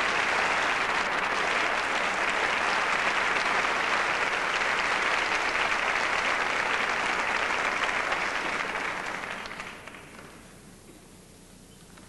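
Concert audience applauding steadily, then fading out near the end.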